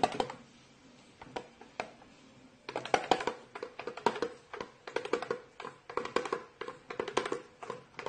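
Cockatiel stepping and dancing on the skin of a small red toy drum: light, irregular taps that come quickly from about three seconds in, after a couple of single taps.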